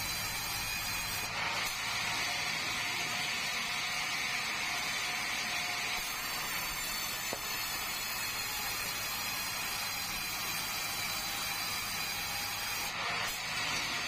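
Sawmill band saw cutting lengthwise through a squared timber, a steady hiss of blade in wood over the low hum of the machine.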